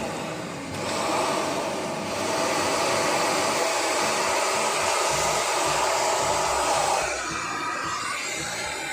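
Amazon Basics cylinder vacuum cleaner running with its corner (crevice) nozzle fitted: a steady motor whine and rush of air that comes up about a second in and drops away about seven seconds in.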